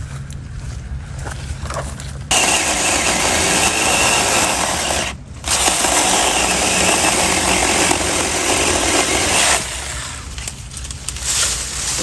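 Saker 4-inch mini cordless electric chainsaw cutting through green wood. The cut starts about two seconds in, breaks off briefly around the middle, then runs on and eases off near the end.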